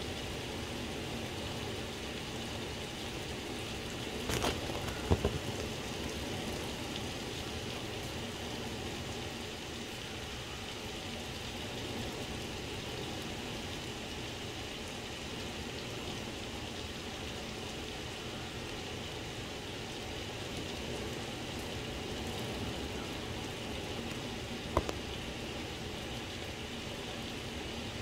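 Steady rain falling during a thunderstorm, an even hiss. It is broken by a few sharp knocks about four to five seconds in and once more late on.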